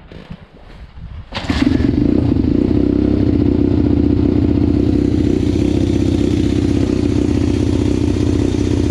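Pit bike's single-cylinder four-stroke engine catching about a second and a half in, then running steadily. The owner takes the way it runs as a bad sign: it is spitting back badly into the carburettor.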